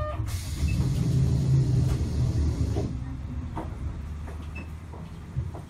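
Sapporo streetcar heard from inside the car: a low running rumble that is loudest in the first half and then eases off, with a hiss of noise over it for the first few seconds.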